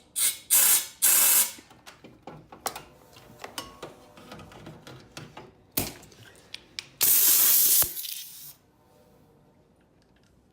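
Compressed air hissing out in short blasts: three quick bursts, then a longer one about seven seconds in, blowing drill shavings out of a freshly drilled hole in a coolant pipe. Small clicks and rattles of handling come between the blasts.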